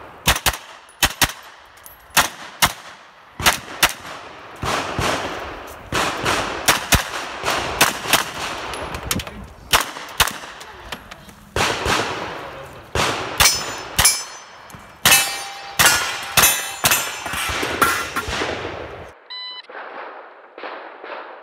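Pistol-caliber carbine, an AR converted with a Stern Defense AD9 kit, fired in fast strings of shots, often doubles, at a stage's targets. Some hits ring off steel plates. The shooting stops about two seconds before the end.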